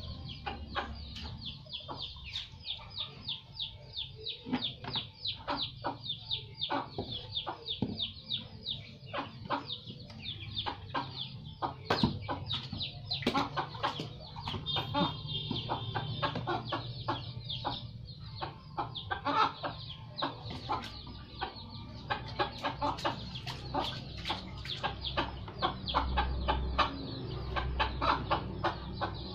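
Chickens clucking in a rapid, steady series, mixed with irregular splashes and slaps of small hands playing in water in a plastic basin.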